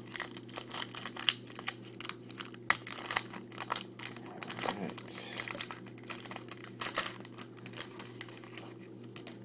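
Card packaging being opened by hand, with an irregular run of crinkling and rustling that thins out near the end, over a faint steady electrical hum.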